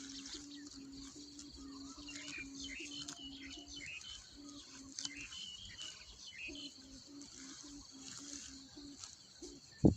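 Rattan-bladed snu, the hummer bow on a flying Thai kite, humming a low tone that pulses about three times a second, breaking off briefly near four seconds in. Birds chirp and insects hiss over it, and a single loud thump lands right at the end.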